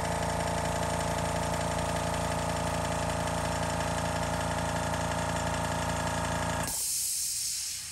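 Small airbrush air compressor running with a steady motor hum, then cutting off near the end with a brief hiss of released air.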